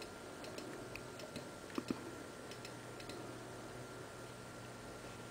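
Computer mouse button clicking: a handful of faint clicks, with two louder ones close together about two seconds in, over a faint steady hum.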